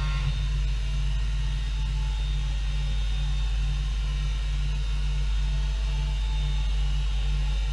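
Machining centre running with a steady low hum and a low pulsing about twice a second.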